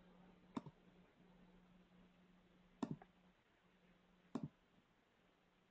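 Near silence over a faint low hum, broken by three soft clicks from operating a computer, each a quick double tick, spaced about two seconds apart.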